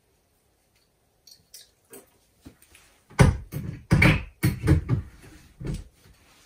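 Plastic sheeting and cloth covers being pulled down from a door frame: a few light clicks, then from about three seconds in a run of six or seven loud rustling, crackling tugs.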